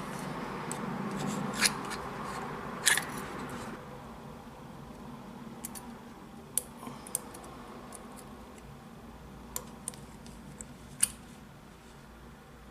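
Hands handling a Smith & Wesson 686 revolver during disassembly. There are a few seconds of rubbing, then scattered short, sharp metallic clicks and taps.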